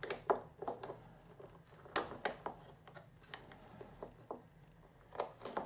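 Light plastic clicks and knocks, scattered and irregular, as the black plastic door panel of a DeLonghi ECAM22.110 coffee machine is handled and worked into its slots on the machine body.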